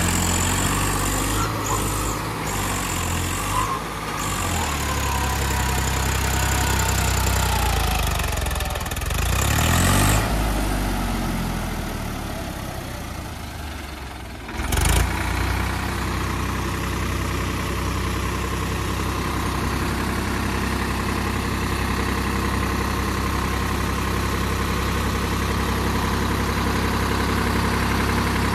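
Swaraj 744 XT tractor's three-cylinder diesel engine working in mud. It revs up and falls back about eight to ten seconds in, sags low around fourteen seconds, picks up sharply a moment later, and then holds a steady speed while the hydraulic tipper raises the loaded trailer.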